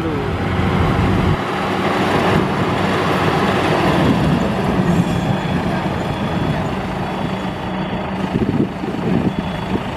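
Combine harvester's engine running steadily as the machine reverses, with faint high beeps repeating in the second half.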